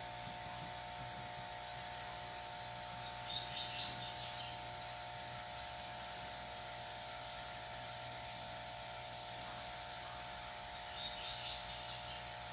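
Steady hum of running aquarium equipment, with two short bursts of bird chirping, one about three seconds in and one near the end.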